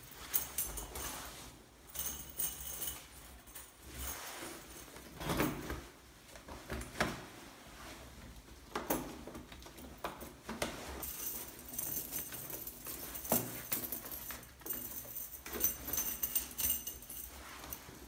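Steel chains and spikes of MicroSpikes traction cleats jangling and clinking in irregular bursts as they are handled, with scattered knocks.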